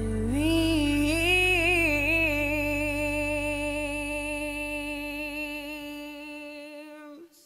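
Slow background music ending on one long held note that wavers at first, then holds steady and fades away over several seconds, dropping to silence just before the end.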